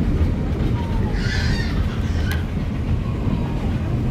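Cabin noise inside a Volvo B8RLE city bus under way: a steady low rumble of diesel engine and road. A brief hiss comes about a second in, and a single sharp click about a second later.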